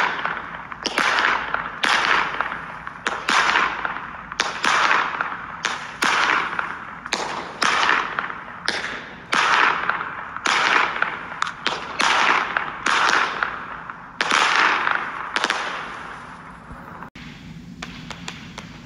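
Winda 'Silent Power' firework cake firing a rapid series of shots, about one and a half a second. Each shot is a sharp report trailing off in a hiss. The firing stops about sixteen seconds in, leaving a few faint clicks.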